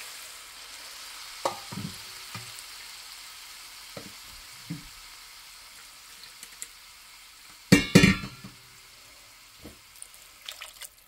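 Hot water poured into a pan of vermicelli freshly fried in ghee and oil, the oil sizzling and slowly dying down as the water goes in. A few light knocks, and a louder clatter about eight seconds in.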